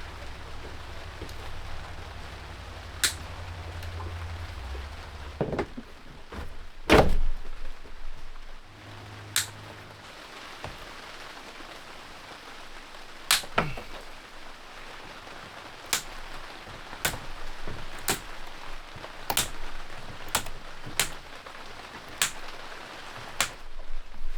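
Scattered sharp clicks and knocks, one every second or two with the loudest about seven seconds in, from hand work tearing old wiring and electrical fittings out of a wooden boat's interior. A low hum runs under the first few seconds.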